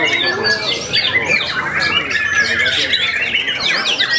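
White-rumped shama singing in quick whistled and chattering phrases, overlapping with many other caged songbirds singing at once, so the song forms a dense, continuous chorus.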